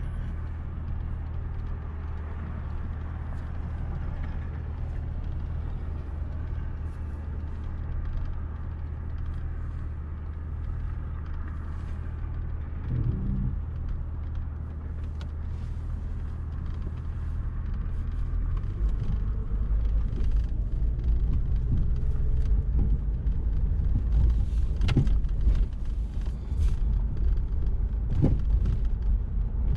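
Car driving along a street: steady engine and road-noise hum that grows louder about two-thirds of the way through, with a few sharp knocks near the end.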